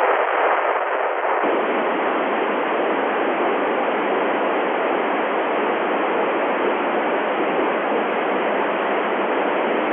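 Steady FM receiver hiss from a radio tuned to the LAPAN satellite's FM downlink on 435.88 MHz: the squelch is open and no station is transmitting through the satellite, so only static comes through. The hiss is heavier in the lows for about the first second and a half.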